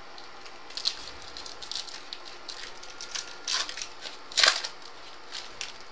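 Trading cards being handled and slid past one another as a pack is flipped through: a few short rustles and flicks, the loudest about four and a half seconds in.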